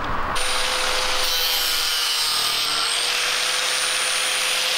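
Angle grinder running at a steady speed with a constant whine, cutting vinyl siding trim strips.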